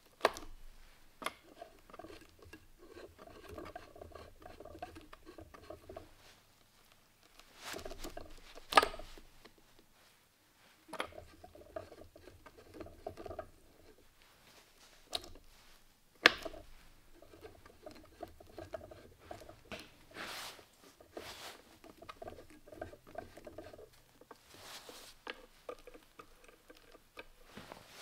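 Gears in a Weiler LZD 220 lathe gearbox rattling as its shafts are turned by hand, in stretches of a few seconds, with several sharp clicks of its levers being shifted.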